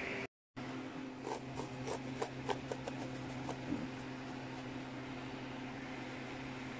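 Light, irregular scratchy ticks of a small brush working over a laptop's plastic casing and vents to loosen dust, thinning out after about four seconds, over a steady low hum.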